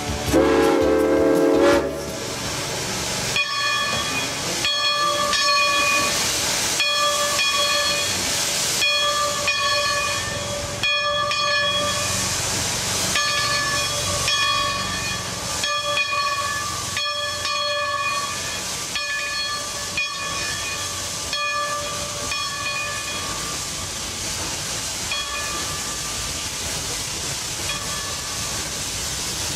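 Steam locomotive venting steam with a steady loud hiss. From about three seconds in, a clear high tone sounds over it again and again, on and off about once a second.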